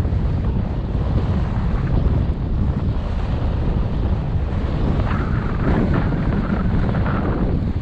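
Wind rumbling on the microphone of a camera moving downhill with a skier, over the hiss of skis sliding on packed snow. The snow hiss grows louder for a couple of seconds past the middle.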